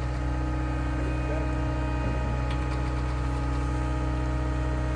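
Heavy equipment engine running steadily at constant speed, a low even drone.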